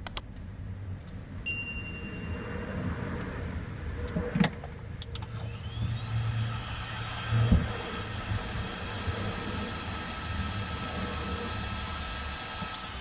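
Electric heat gun blowing hot air, its fan motor whining up to speed about five seconds in and running steadily before switching off near the end. It is heating solder seal spade connectors so their solder melts and the heat-shrink sleeves shrink. A couple of knocks from handling the parts sound along the way.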